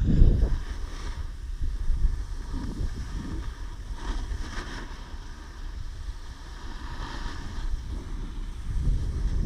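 Wind buffeting the microphone of a selfie-stick action camera carried by a snowboarder riding downhill. Under it the snowboard scrapes over the snow, with hissing swells about four and seven seconds in.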